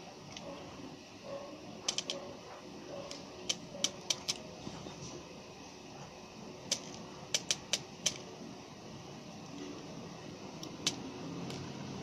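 White zebra finch pecking at millet seed in a plastic feeder tray: sharp, irregular beak clicks in quick clusters as it picks up and cracks the seeds.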